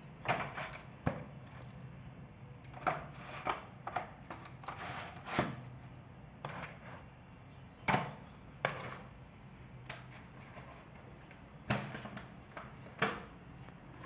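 Marinated raw chicken pieces being moved by hand from a plastic bucket into a disposable aluminium foil baking tin: irregular sharp knocks and taps, about one a second, as pieces are set down and the tin and bucket are handled.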